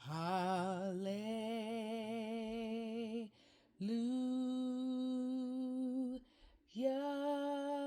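A single unaccompanied voice singing a slow worship melody in three long held notes with short breaths between. The first note slides up into pitch and wavers with vibrato; the next two are held steady, each a little higher.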